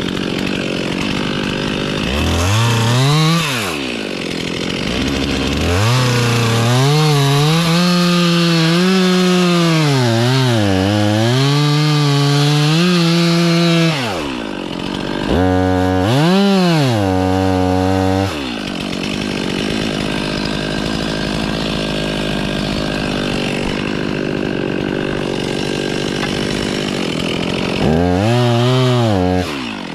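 Two-stroke chainsaw cutting into a tree trunk. The engine revs up briefly, then holds a long high-pitched cut whose pitch dips and recovers under load. Between further short revs it runs at a lower, steadier pitch for a stretch.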